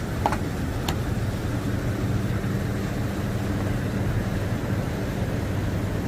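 Flash-flood water rushing down the wadi, a steady low rumble, with two short high chirps within the first second.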